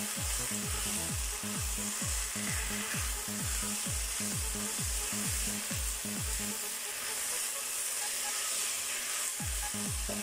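Shredded vegetables sizzling in a hot non-stick wok with a steady hiss while a silicone spatula stirs and tosses them.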